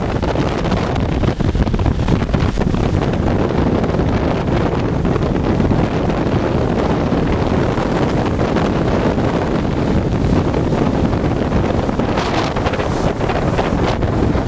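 Storm waves surging and breaking in a steady roar against a stone groyne, with heavy wind buffeting the microphone; a few sharper hissing surges come near the end.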